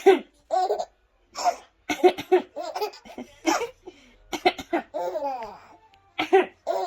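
A woman coughing in short, sharp bursts, several times over, with a baby laughing between the coughs.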